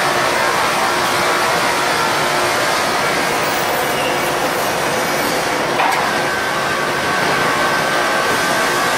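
Steady machinery noise of a fiber cement board production line, with roller conveyors and motors running. A single knock comes about six seconds in, and a steady high whine joins after it.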